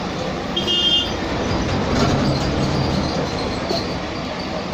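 Steady running noise of a moving vehicle, with a brief high-pitched tone about half a second in.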